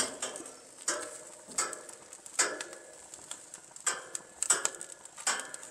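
Metal barbecue tongs clinking against the grill grate as chicken drumsticks are picked up and turned, about seven sharp clinks, each with a short metallic ring.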